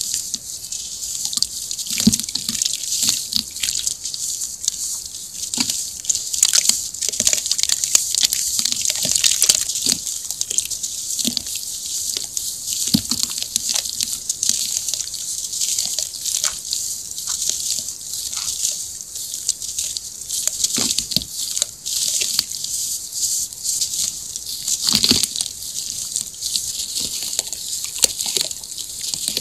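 Dry sand and crumbled cement lumps crushed by hand and poured into a basin of water: a continuous fizzing hiss of grains pattering onto the water, full of small crackles, with an occasional heavier low thud.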